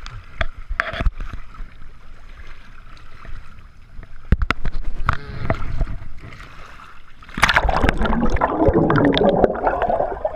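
Lake water splashing and sloshing from someone wading and swimming, with scattered sharp knocks and splashes. About seven seconds in it turns into a louder, dense bubbling rush as the microphone goes underwater.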